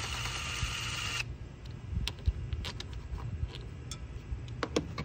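Hand-tool work on a T30 Torx screw: a short burst of rasping noise in the first second, then scattered light clicks and taps of the tool and screw.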